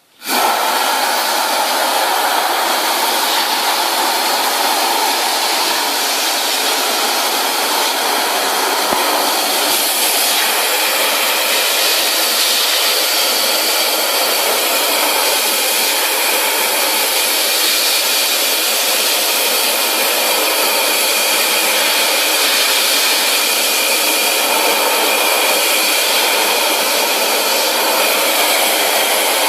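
Compressed-air-driven wet/dry industrial vacuum running steadily, a loud rushing hiss of air as it sucks up foam. It starts up within the first half second.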